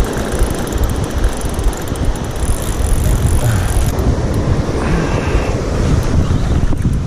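Wind buffeting the microphone in a heavy, steady low rumble, with the wash of surf behind it.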